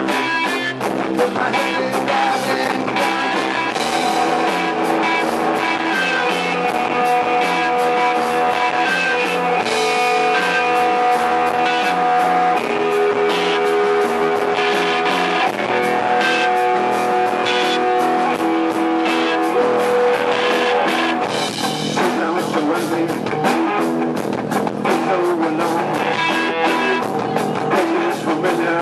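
Rock music with electric guitar and a drum kit, with long held guitar notes through the middle.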